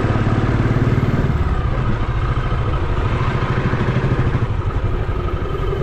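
Motorcycle engine running with a steady pulsing beat as the bike rides along; the engine note drops a little about a second and a half in.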